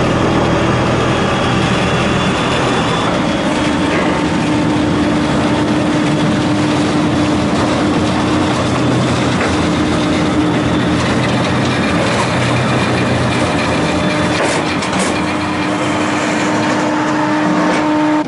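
Car ferry's engines and deck machinery running as it docks: a loud, steady mechanical drone with a constant hum.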